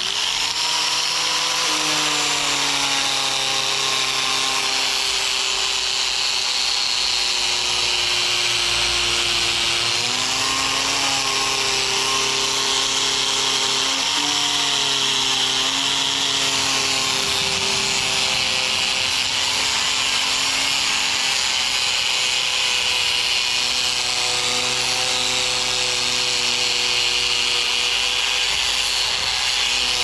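Electric angle grinder with an abrasive disc running continuously, sanding carved jackfruit-root wood, with a steady grinding hiss. The motor's pitch sags and recovers a few times as the disc is pressed into the wood.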